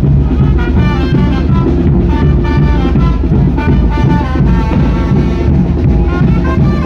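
A Mexican banda, a brass band with drums, playing a tune: brass carrying the melody over a steady bass and drum beat.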